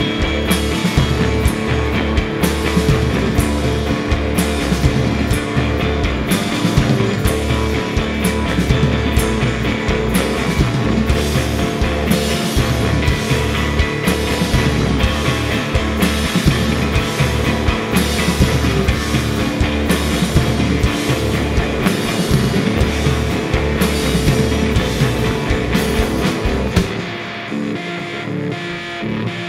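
Live rock band playing psychedelic rock: electric guitars over bass and a drum kit with steady drum and cymbal hits. About three seconds before the end the drums and low end drop out, leaving the guitars sounding on their own, quieter.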